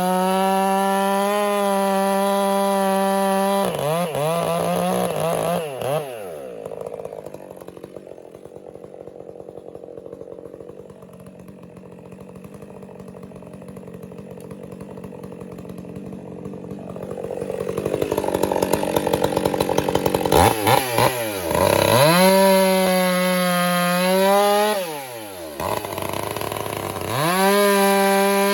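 Stihl MS 400 C two-stroke chainsaw cutting firewood at full throttle. It drops to a low idle for about ten seconds, then revs up again in three bursts near the end, its pitch sagging under load in the cut.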